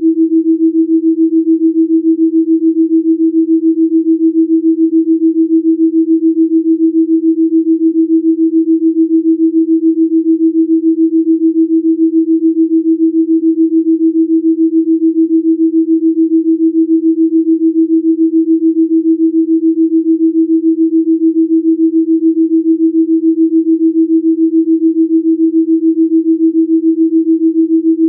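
Electronically generated pure sine tone at a single steady low pitch, throbbing evenly a few times a second: a delta-range beat tone of the kind made for Rife-frequency listening.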